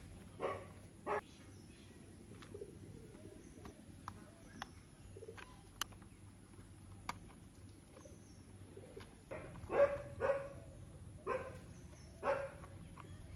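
Sharp clicks and taps of hard plastic toy car parts being handled, an axle pushed through the chassis and a wheel fitted. Several short pitched calls stand out over them, two near the start and four close together in the last few seconds.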